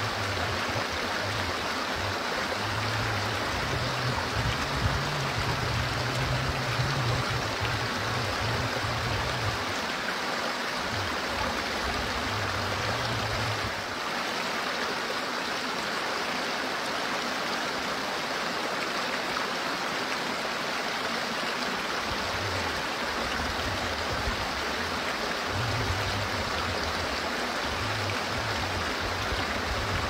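Shallow stream rushing and splashing over rocks in a steady, even wash of water noise. A low rumble comes and goes underneath, strongest in the first third and near the end.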